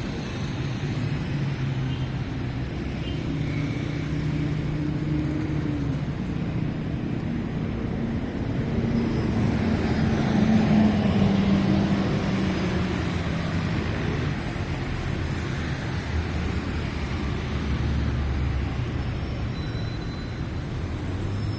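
City street traffic: vehicle engines running steadily, with one vehicle growing louder as it passes about halfway through.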